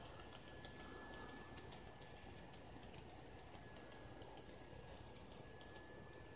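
Kato N-scale Silver Streak Zephyr model train running past on its track: faint, rapid, irregular clicking of the wheels that thins out as the last cars go by.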